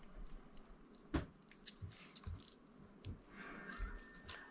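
Faint wet squishing and small clicks of hands working garlic cloves into a raw beaver roast, with one sharper click about a second in.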